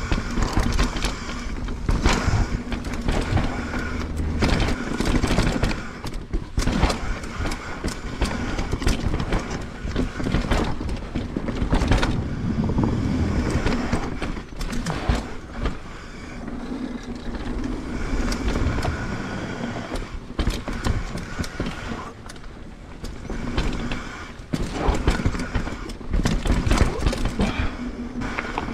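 Propain Spindrift mountain bike descending a dirt trail: knobby Schwalbe Magic Mary/Big Betty tyres rolling over dirt and roots, with frequent knocks and rattles from the bike over bumps and a low rumble of wind on the microphone.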